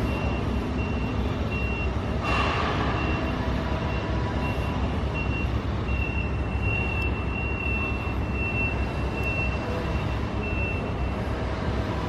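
Diesel construction machinery running with a steady low rumble while a backup alarm beeps in a high, even tone, pulsing at first and then sounding almost without gaps in the second half. A short burst of noise comes about two seconds in.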